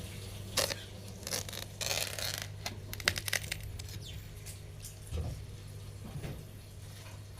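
Ripe watermelon giving off a strange sound: short, irregular hissing and cracking bursts, several in a row, over a steady low hum.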